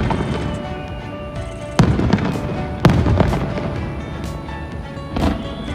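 Aerial fireworks bursting: two loud bangs about a second apart, near two seconds in, then a softer one near the end, each trailing off over about a second.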